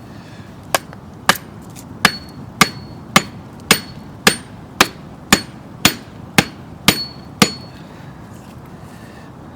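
About a dozen hard hammer-like blows at a steady pace of roughly two a second, several leaving a short metallic ring, then stopping.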